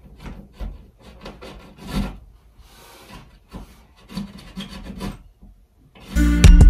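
Short scraping creaks, a few a second, from a screw being turned by hand with a screwdriver into the wall. About six seconds in, loud guitar music cuts in.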